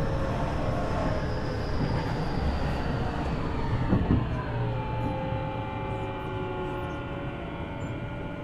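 Tokyu 5000 series electric train running, with a rumble of wheels on rail under several inverter and traction-motor whines. The whines glide down in pitch and settle into steady tones about five seconds in, as the train slows.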